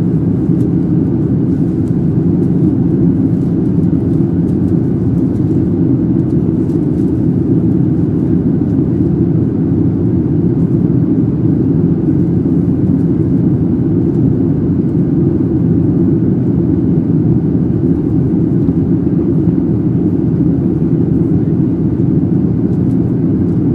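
Steady cabin noise of a Boeing 737-700 in flight, heard from a window seat over the wing: airflow and CFM56-7B engines as an even, low, unchanging noise.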